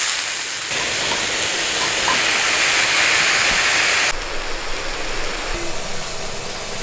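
Pork belly frying in a pan, a steady hissing sizzle. It grows louder about a second in and drops back suddenly about four seconds in.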